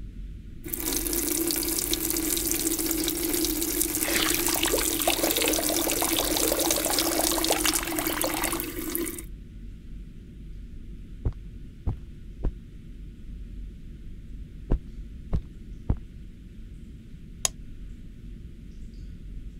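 Bathroom sink tap turned on and running, with the water splashing over hands being washed from about four seconds in, then shut off abruptly after about eight seconds. A handful of short, sharp clicks follow.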